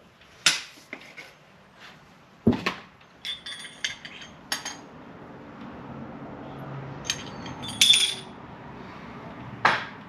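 Irregular sharp metallic clinks and knocks of motorcycle fork parts and tools being handled, each with a short ring, the loudest about eight seconds in.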